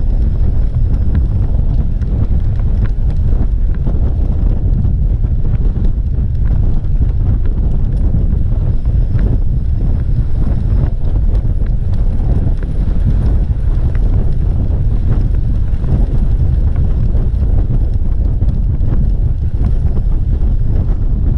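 Wind rushing over the microphone of a camera on a road bike moving at speed: a loud, steady low rumble.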